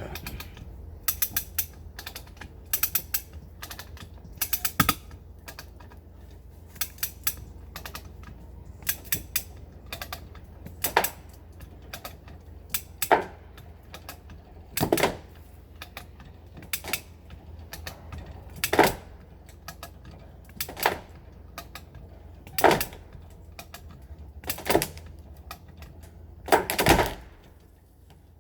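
Hand-operated come-along ratchet being cranked, its pawl clicking over the gear teeth: clusters of quick clicks at first, then one strong click about every two seconds as the lever is pumped to tension the chain.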